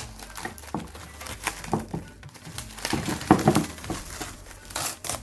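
Packaging crinkling as the chicken is handled: a run of irregular crackles and rustles.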